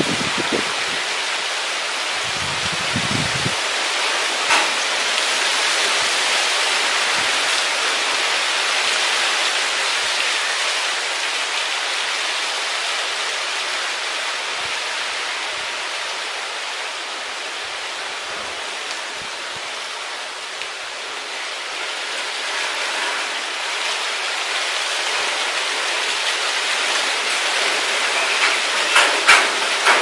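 Strong wind rustling through tree foliage: a steady leafy hiss that slowly swells and eases.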